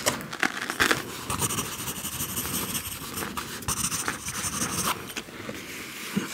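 Close-miked scratching and scraping that goes on for most of the stretch, with no chewing or speech.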